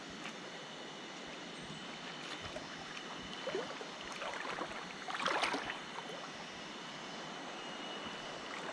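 Steady rush of a fast-flowing river, with short louder splashes about three and a half and five seconds in.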